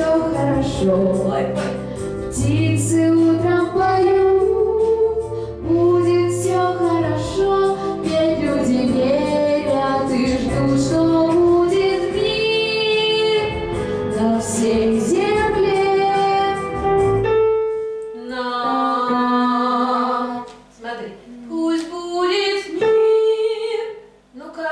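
A girl singing a pop-style song into a microphone over a steady accompaniment. About seventeen seconds in, the accompaniment stops, and shorter melodic phrases with pauses follow.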